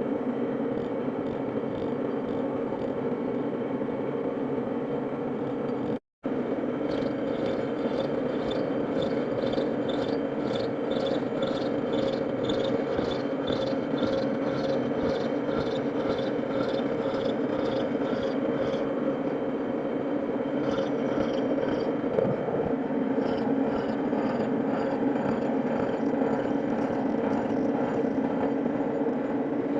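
Milling machine running with a steady hum, and from about six seconds in a regular scraping, roughly twice a second, that fades out about two-thirds of the way through. The sound cuts out completely for a moment about six seconds in.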